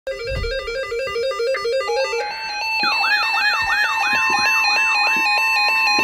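Several weather alert radios sounding their alarms at once for a severe thunderstorm warning: fast stepping electronic beep patterns, joined about two seconds in by steady tones and a chirping sweep that repeats about three times a second.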